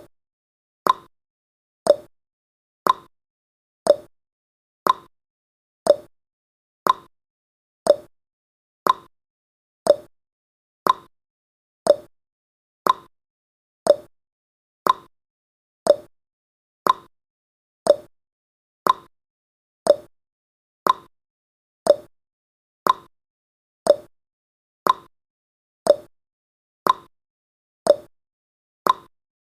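Countdown timer's clock-tick sound effect: a short, sharp tick once every second, evenly spaced, marking each second of the countdown.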